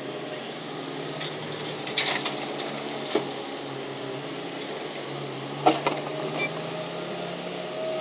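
Kobelco hydraulic excavator's diesel engine running steadily, with a few sharp knocks and clatters about two seconds in and again near six seconds as the machine works the dirt.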